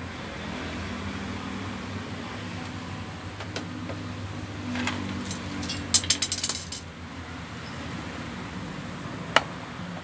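A quick rattle of small metal clinks about six seconds in, then a single sharp click near the end, over a steady low hum.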